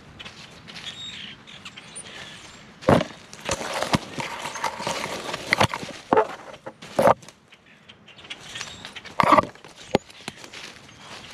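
Dry twigs and dead grass rustling, scraping and snapping against a body-worn camera as an animal pushes through a brushy thicket. Irregular sharp cracks stand out over the rustling, the loudest about 3, 7 and 9 seconds in.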